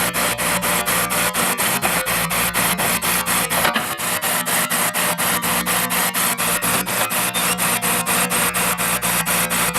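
Heavy construction machine's diesel engine running steadily under a rapid, even clatter of about four knocks a second.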